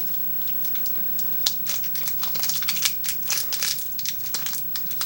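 Kit Kat wrapper crinkling and crackling as it is handled and worked open with slippery fingers, sparse at first and busier from about a second and a half in.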